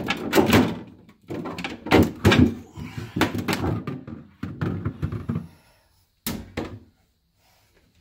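Plastic evaporator cover panel at the back of a refrigerator's freezer compartment being worked loose and pulled down, knocking and scraping against the plastic liner in a quick run of thunks and rattles, with one last short clatter about six and a half seconds in.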